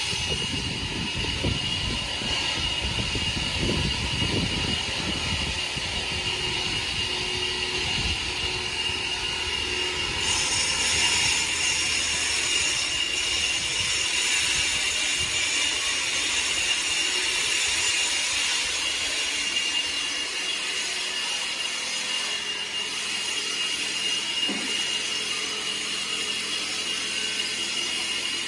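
Steady machine noise with a constant high whine over a broad hiss; a low rumble in the first half fades out about two-thirds of the way through.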